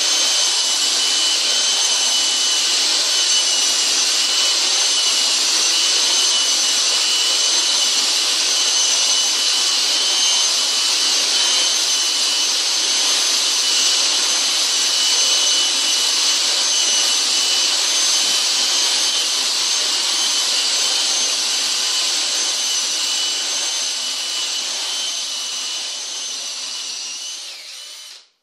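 Cordless drill at 1,800 rpm driving a Dry Magic dry diamond blind-hole bit into hard tile: a steady high grinding hiss with a thin whine in it. It fades over the last few seconds and cuts off suddenly near the end.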